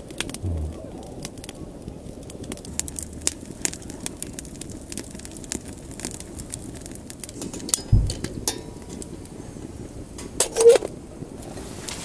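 Hardwood fire crackling and popping with irregular sharp snaps, with a dull low thump about eight seconds in and a short louder knock near the end.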